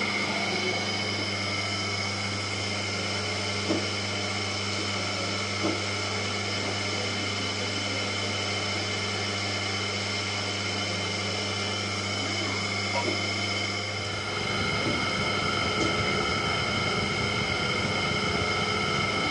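Electric potter's wheel spinning a hump of wet clay, its motor giving a steady hum with a few faint ticks. About two-thirds of the way through, the low hum falls away into a rougher rumble.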